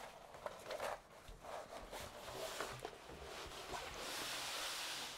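Large diamond painting canvas and its glossy cover paper rustling and crackling as hands roll and smooth it, with a longer sliding rub about four seconds in.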